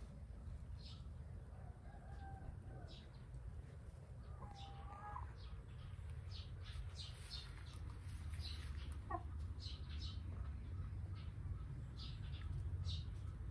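Domestic hens clucking and calling softly, with short high chirps scattered throughout, over a steady low rumble.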